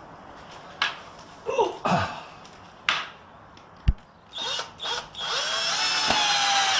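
Cordless drill driving a screw through the easel's wooden top: a few knocks and clicks as the screw is set, then two short bursts of the motor and a longer run whose whine rises and then holds.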